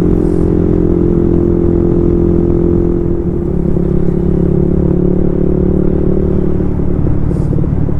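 Suzuki Raider Fi 150's single-cylinder four-stroke engine running at a steady cruising speed, its note holding even.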